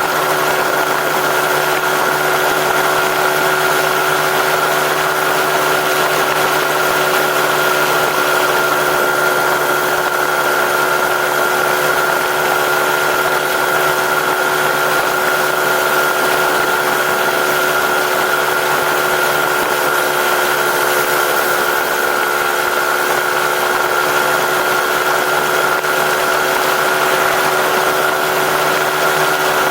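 An engine idling steadily at an unchanging speed, heard through its stock exhaust.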